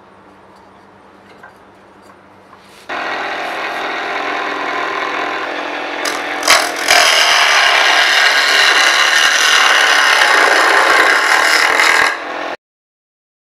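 Wood turning on a homemade lathe: a chisel cutting a spinning wooden blank, a loud steady scraping hiss over the running motor. It starts suddenly about three seconds in, after a faint low hum with a few small clicks, grows louder a few seconds later, and cuts off near the end.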